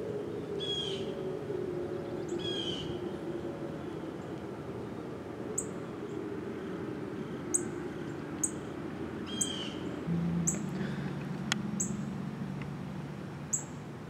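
The last of a Whelen WPS 2908 electronic siren's tone gliding slowly down in pitch and fading out in the first few seconds, leaving birds calling: a few quick downward-sweeping chirps and short sharp chips repeated every second or so. A low hum comes in about ten seconds in.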